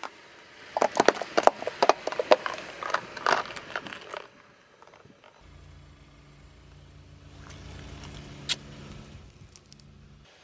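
A rapid run of sharp cracks and crackles for about four seconds, as things are crushed under a car's tyres. Then a steady low engine hum starts, with a single sharp snap partway through, and the hum cuts off near the end.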